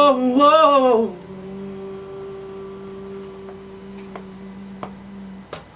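A held sung note with a wavering pitch ends about a second in. After it comes a faint steady low hum with a few soft clicks.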